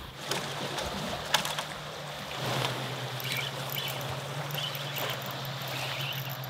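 Sea water washing against the rocks below the railing, with a steady low hum of a motorboat out on the water that grows a little stronger partway through. There is a single sharp click a little over a second in.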